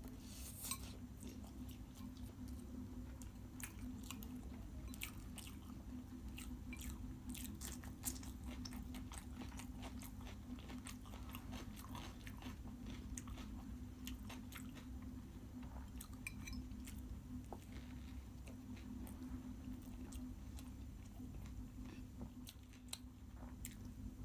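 A person eating close to the microphone: chewing a mouthful of Maggi noodles with many small wet clicks and smacks of the mouth, then biting into a soft vada pav bun near the end. A steady low hum runs underneath.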